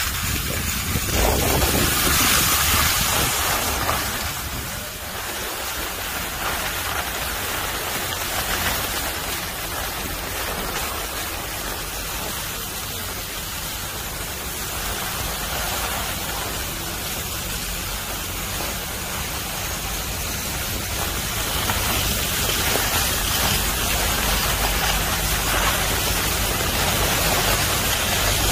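Steady rushing noise of skiing downhill: skis sliding over groomed snow, with wind across the microphone, loudest a couple of seconds in.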